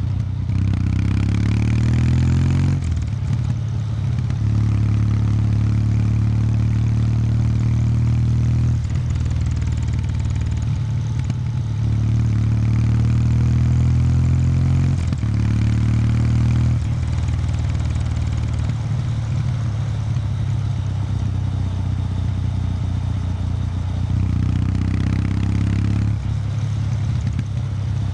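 Kawasaki W800 Street's air-cooled parallel-twin engine through its stock exhaust, running under way. The pitch rises in several pulls and drops away between them as the throttle closes and opens.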